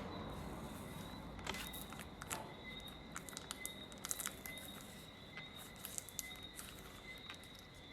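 Faint, irregular sharp clicks and crackles of a pry tool working under a phone's glued back glass as the adhesive lets go, over a steady high-pitched whine.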